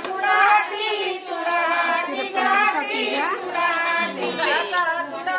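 A woman singing an unaccompanied traditional Marathi jatyavarchi ovi (grinding-stone song) as a wedding song, in a steady flowing melody.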